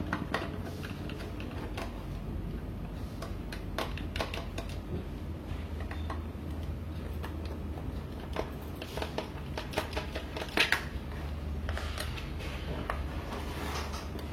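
Scattered small clicks and knocks of a Phillips screwdriver working the bottom-cover screws out of a mini PC, over a steady low hum.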